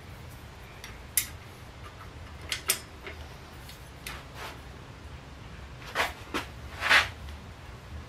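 Spanner wrench clinking against the BBSHD mid-drive motor's main fixing nut as the nut is tightened onto the bottom bracket shell: a handful of short metallic clicks, loudest near the end.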